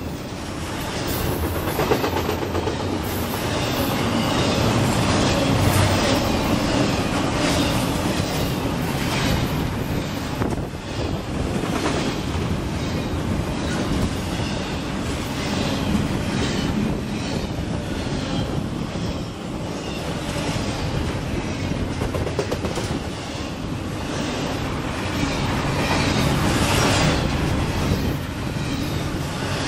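Double-stack intermodal freight train passing close by: the cars roll past in a steady rumble, with the wheels clacking over the rails again and again.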